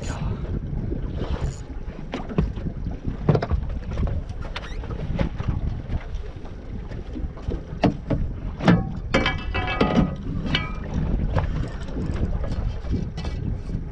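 Wind buffeting the microphone and water slapping against the hull of a small boat at sea, with scattered sharp knocks. About nine seconds in comes a brief cluster of louder knocks and a short higher-pitched sound.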